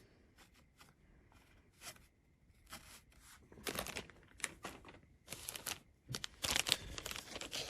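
Sealed mystery-pack wrapper crinkling and tearing as it is handled and opened: a few scattered crinkles at first, growing denser and louder near the end.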